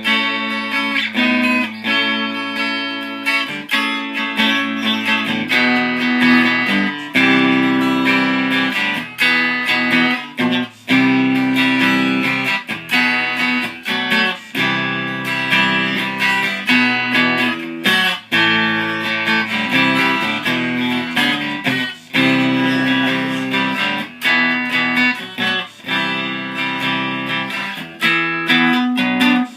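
Six-string cigar box guitar made from an Aroma de Cuba cigar box, played as a run of chords with frequent sharp strokes and changing harmonies.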